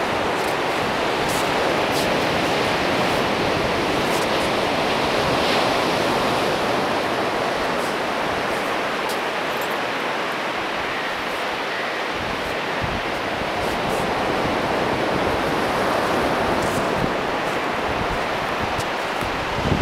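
Steady, continuous wash of ocean surf.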